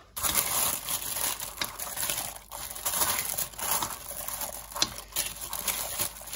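Clear plastic slow-cooker liner crinkling as raw diced beef, onion and stock are stirred inside it: a continuous rustle with irregular small clicks.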